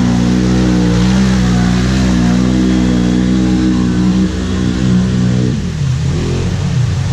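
Off-road vehicle engine running at steady revs, then dropping in pitch about five and a half seconds in as the throttle comes off, settling to a lower steady drone.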